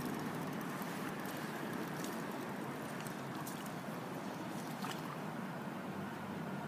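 Steady outdoor background noise: a low, even hum and hiss, with a few faint clicks about two, three and five seconds in.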